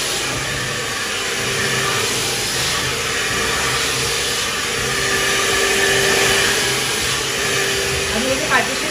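Handheld hair dryer blowing steadily, its motor giving a steady hum under the rush of air as hair is blow-dried.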